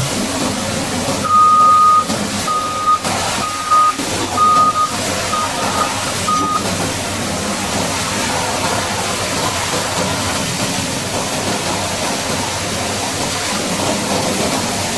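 Heavy equipment's backup alarm beeping about six times, one steady tone, starting about a second in and stopping some five seconds later, over a steady rushing noise.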